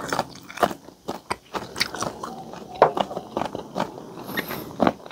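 Close-up sounds of a man chewing a mouthful of crunchy food: irregular crunches and wet mouth smacks.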